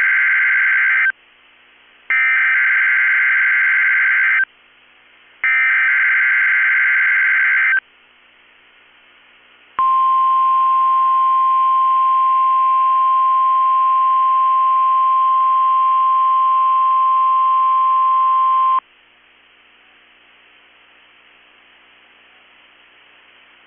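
NOAA Weather Radio Emergency Alert System test signal: three bursts of warbling digital SAME header data, each about two and a half seconds, then the steady 1050 Hz weather radio warning alarm tone held for about nine seconds, which cuts off to faint static. This sequence opens the station's Required Weekly Test.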